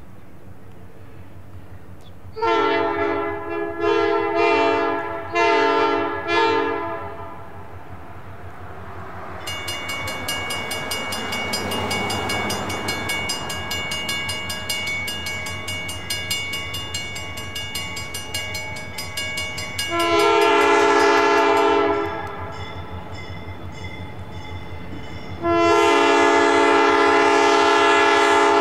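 Diesel locomotive air horn sounding a chord in a run of four short blasts, then a two-second blast and a longer one near the end. In between, a bell rings rapidly and the locomotive's engine rumble swells as it passes. The locomotive is an EMD GP9RM.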